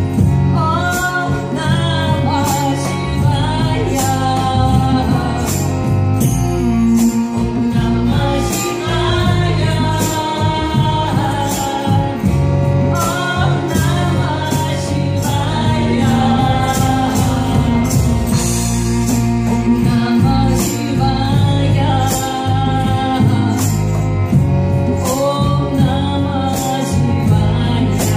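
Live kirtan music: voices chanting a sung melody over hand percussion that keeps a steady beat, with a sustained low drone underneath.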